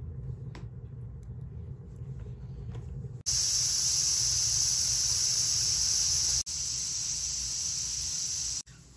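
A low steady rumble, then about three seconds in a pressure cooker starts letting off steam through its valve: a loud, steady, high hiss that breaks briefly once and stops sharply near the end. The hiss is the sign that the cooker has come up to pressure.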